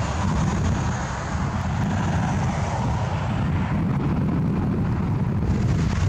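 Wind buffeting the microphone outdoors: an uneven low rumble with a fainter hiss above it.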